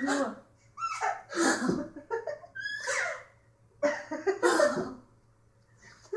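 A six-month-old baby giggling in short breathy bursts about a second apart, laughing each time she is played with.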